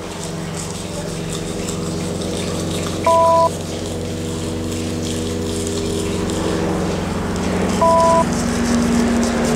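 Steady electronic drone of several held low tones. A short, loud two-tone electronic beep cuts in twice, about four and a half seconds apart.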